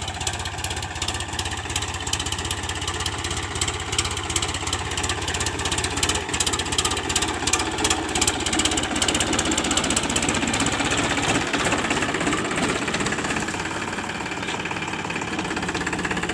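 Powertrac Euro 50 tractor's diesel engine running steadily, with a dense, rapid clatter over the drone that is strongest around the middle.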